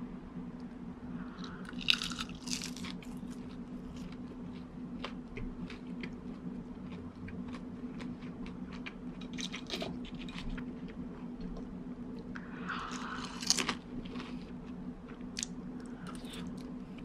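Close-up eating of fried calamari: crisp crunching bites and chewing, with two louder crunches, one about two seconds in and one later on, over a steady low hum.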